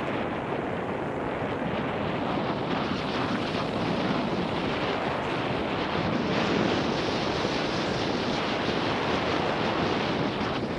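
Wind rushing over a helmet-mounted Garmin VIRB 360 camera's microphone, mixed with the rumble and crackle of mountain bike tyres rolling fast over a dirt trail.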